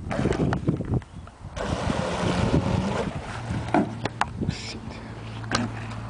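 Remote-control boat handled close to the microphone, with knocks and clicks throughout. A rush of noise lasts about a second and a half early on, then a steady low motor hum runs until shortly before the end.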